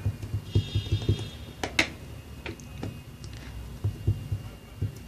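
Play-Doh and a yellow plastic Play-Doh tool handled on a tabletop: a quick irregular run of soft low thumps as the dough is pressed, with two sharp plastic clicks a little under two seconds in.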